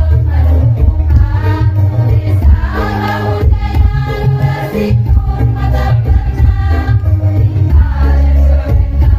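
Women's choir singing to electronic keyboard accompaniment with a strong bass line.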